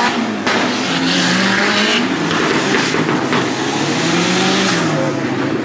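Off-road race buggy's engine revving hard under load, its pitch rising and falling again and again as the driver works the throttle.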